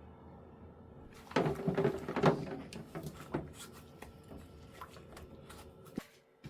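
Plastic dishwasher filter being pulled apart and handled: a few clattering plastic knocks and scrapes, the loudest about a second and a half in and again just over two seconds in, with fainter clicks after.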